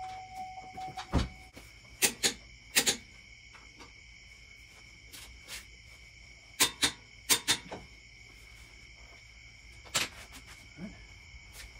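Sharp clicks and knocks from hand tools working on a truck's front wheel hub, about ten of them, several in quick pairs. Crickets chirp steadily underneath.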